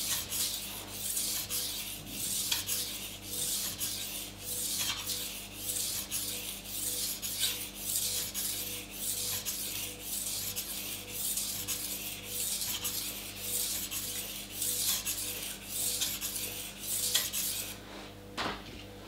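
Steel kitchen knife edge stroked back and forth on a wet 1000-grit water stone, a rasping scrape about twice a second that stops shortly before the end. These are the sharpening strokes on the blade's second side.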